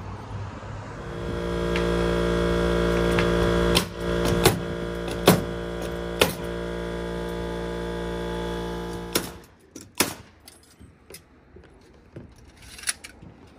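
Pneumatic framing nailer driving nails into roof plywood: a string of sharp single shots between about four and ten seconds in, over a steady machine hum that cuts off about nine seconds in. Scattered light knocks follow.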